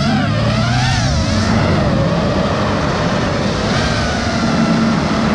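FPV quadcopter motors and propellers whining, the pitch swinging up and down with the throttle, over steady rushing wind and prop noise.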